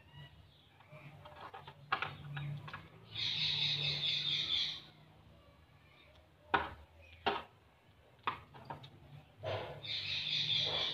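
Two bursts of high, rapid chirping, like a bird, about three seconds in and again near the end. Between them come a few sharp clicks and taps from hands handling the earphone cable and its plastic packaging.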